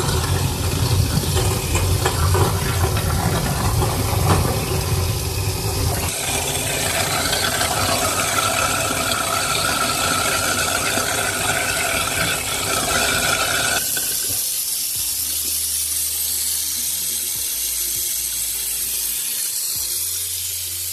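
An InSinkErator food waste disposer runs under a running tap, grinding pomelo and mango peels, its motor giving a steady low hum under the grinding noise. About fourteen seconds in the grinding noise drops away, leaving the motor spinning with the water flowing through.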